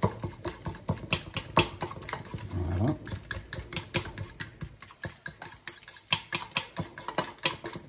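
A fork mashing half a chicken stock cube into olive oil in a stainless steel bowl: rapid, irregular clicks and scrapes of the metal tines against the bowl.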